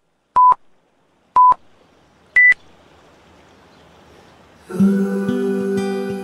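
Electronic countdown-timer beeps: two short beeps a second apart, then a higher final beep about two and a half seconds in that marks the start of the next exercise. Background music comes in near the end.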